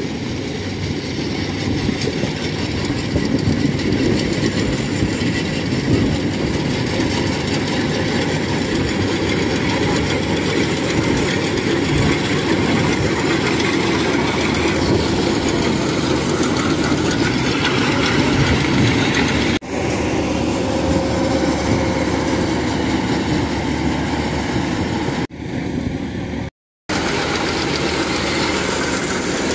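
Kubota DC-105X rice combine harvester running steadily while cutting and threshing rice, with a loud, even engine-and-machinery noise. It breaks off abruptly twice near the end, very briefly.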